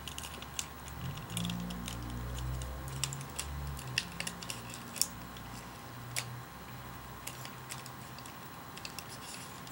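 Small plastic clicks and taps as the back wheel of a plastic action-figure motorcycle is twisted and folded into hoverboard mode, with a low hum between about one and four seconds in.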